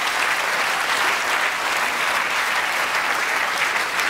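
Theatre audience applauding steadily, a dense patter of many hands clapping.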